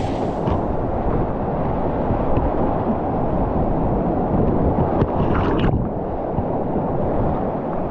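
Whitewater river rapids rushing steadily around a kayak, a dull, low roar of churning water, with a brief splash about five seconds in as the paddle works.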